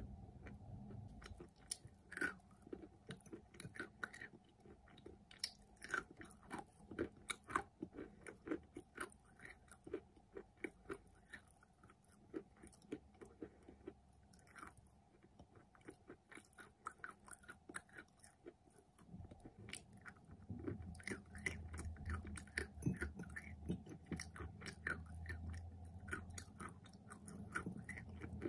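Close-miked chewing of dry edible clay: a run of sharp crunches and mouth clicks, with a fresh bite about halfway through. A low hum joins about two-thirds of the way in.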